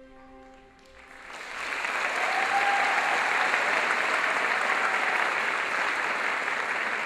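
The last held chord of recorded ballet music fades out, and audience applause swells in about a second in and goes on steadily.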